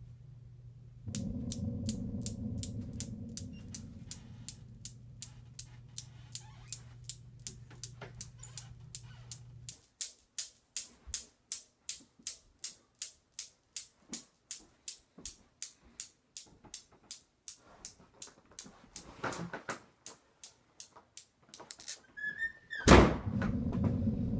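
Newton's cradle clicking steadily, about three clicks a second, over a low droning hum that stops about ten seconds in. Near the end a sudden loud crash with a rising high tone, then a low rumbling drone.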